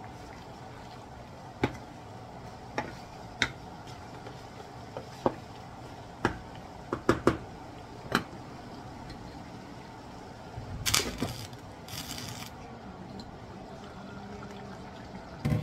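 A wooden spoon stirring chicken pieces in a deep pan, knocking sharply against the pan several times over the first eight seconds, over the steady low hiss of the sauce simmering. Near the end the pan's glass lid is handled, with a louder knock.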